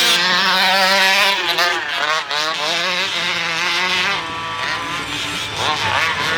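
Engine of a 1/5-scale RC truck running, its pitch rising and falling repeatedly as the throttle is worked.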